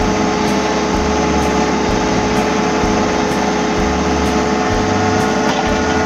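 Heavy diesel machinery running steadily, heard from inside an excavator cab, with a constant whine over the engine's rumble.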